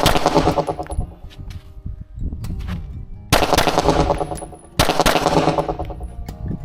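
Glock 47 9mm pistol being fired: three loud volleys of gunfire, at the very start, about three seconds in and about five seconds in, each ringing out for about a second.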